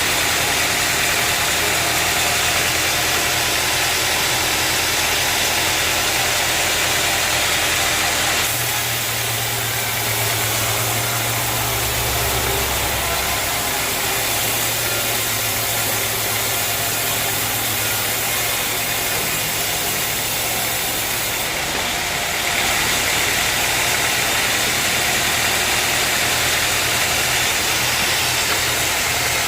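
Sawmill machinery running steadily: a continuous loud mechanical hum with dense hiss. The sound shifts abruptly about eight seconds in and again about twenty-two seconds in.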